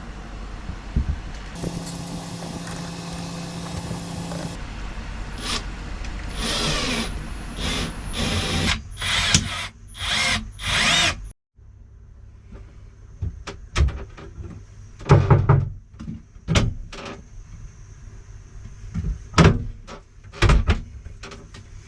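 Power drill running: one steady run of about three seconds, then a series of short bursts like screws being driven. After an abrupt cut come scattered knocks and more brief bursts of tool work.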